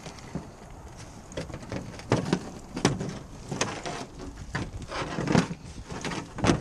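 Irregular sharp knocks and rattles as a tangled fishing net with a belt of rusty cartridges caught in it is pulled, shaken and dropped against the boat's hull, with rustling of the net between them.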